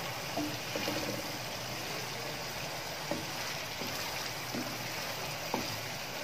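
Thick tomato-and-yogurt masala sizzling in ghee in a non-stick pan as it cooks down until the ghee separates, while a wooden spoon stirs it. A few light clicks and pops from the spoon and bursting bubbles come through the steady sizzle.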